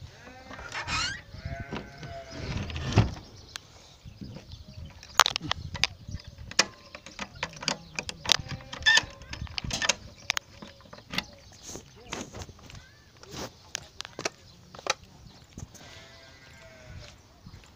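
Livestock bleating: two wavering bleats in the first three seconds and another near the end. Between them is a scatter of sharp clicks and knocks from things being handled close by.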